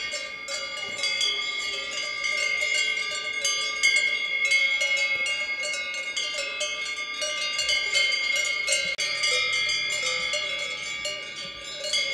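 Cowbells on collars of grazing cows ringing continuously and irregularly as the animals move their heads. Several bells of different pitches ring over one another.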